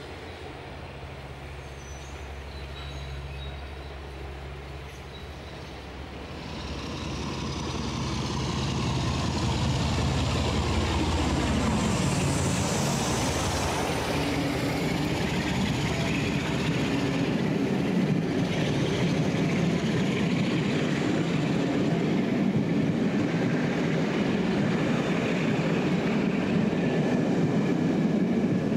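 Class 47 diesel locomotive approaching and passing close by: a steady engine note grows louder from about six seconds in, with a high whine that drops in pitch as the loco goes past. Then comes the steady rumble and clatter of its passenger coaches' wheels on the rails.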